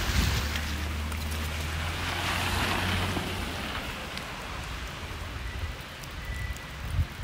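A vehicle passing on a snowy street: its tyre hiss swells about two seconds in and fades, over a low engine hum that stops about three seconds in.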